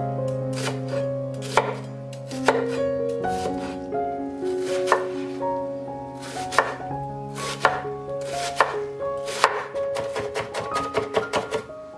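Kitchen knife cutting an onion on a wooden cutting board: single strokes about a second apart, then quicker rapid chopping near the end as the onion is finely chopped. Soft background music plays underneath.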